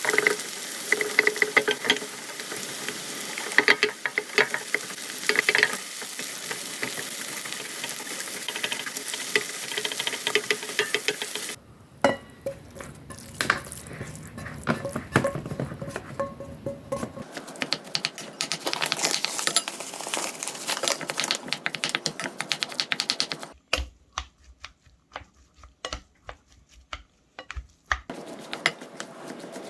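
Food sizzling in a frying pan while being stirred, with a utensil scraping and clicking against the pan; a shorter stretch near the end has only scattered sharp clicks and taps.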